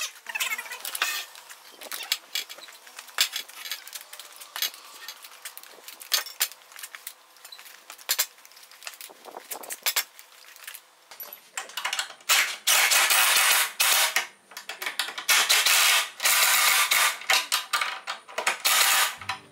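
Metal hardware clinking and clicking as bolts and brackets are handled, then a cordless power driver runs in several long bursts, driving bolts through a metal bracket into a wooden post.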